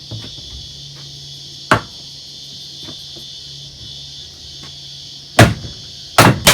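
Sharp knocks as an office chair's gas-lift cylinder is knocked out of its five-star base: one knock about two seconds in and two louder ones near the end.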